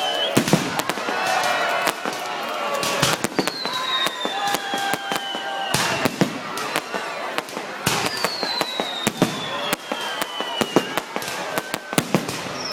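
Fireworks going off in a rapid run of cracks and pops, with high whistles that fall slowly in pitch every few seconds.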